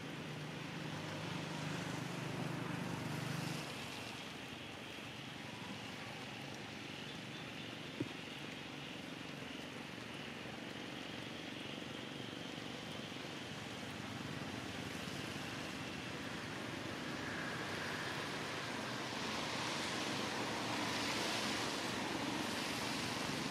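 Steady outdoor background noise, like wind or distant traffic. A low hum runs through the first three seconds or so, there is a single sharp click about eight seconds in, and the hiss grows a little louder toward the end.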